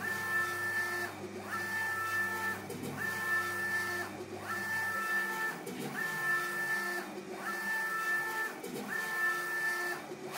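UV flatbed inkjet printer's printhead carriage shuttling back and forth while printing: a steady motor whine of several tones on each pass, about a second long, broken by a brief pause at each reversal. A low hum underneath stops about halfway through.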